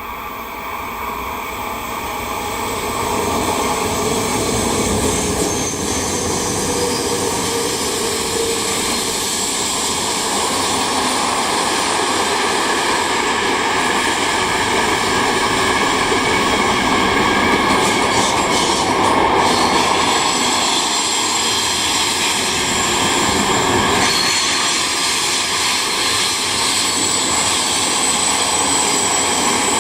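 Electric train passing on the Lötschberg mountain line, getting louder over the first few seconds as it approaches and then running by steadily, with a faint whine from the locomotive over the rumble of the wagons.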